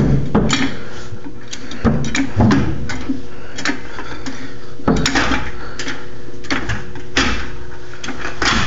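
Metal clanks and rattles of a floor jack being worked under a truck's transmission, in irregular strokes about every one to two seconds; the jack has been leaking down. A faint steady hum runs underneath.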